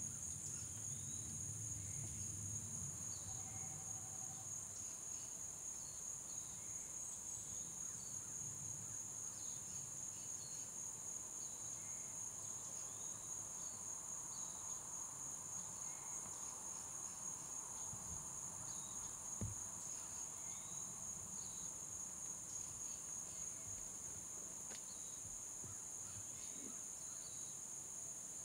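Steady, high-pitched chorus of insects, with scattered faint short chirps above it. A single dull thump comes about two-thirds of the way through.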